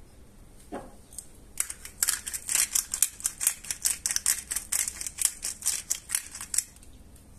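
Handheld glass-bottle spice grinder twisted back and forth, giving a fast run of crunchy grinding clicks, about four a second. It starts about a second and a half in and stops shortly before the end.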